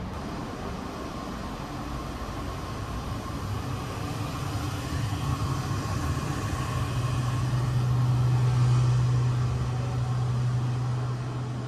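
Steady rumble of a sleeper train car, with a low hum that swells about halfway through and fades again near the end, loudest while crossing the gangway between cars.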